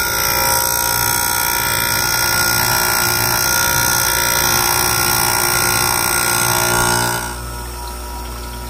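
Electric bench chainsaw-chain grinder, its wheel grinding a chain tooth with cooling water running onto the chain: a loud, steady whine. About seven seconds in the head is lifted off the chain and the wheel runs on more quietly.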